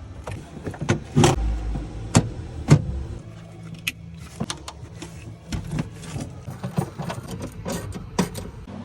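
Irregular clicks, knocks and a heavy thump, typical of parts and trim being handled inside a car, over a low steady hum.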